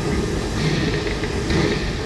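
Narrow-gauge steam locomotive running along the line, heard close up from on the engine itself: a steady mix of the locomotive working and its wheels on the rails.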